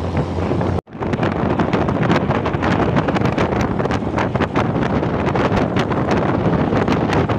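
Wind buffeting the microphone at the open window of a moving vehicle, over road noise. The sound cuts out for an instant about a second in.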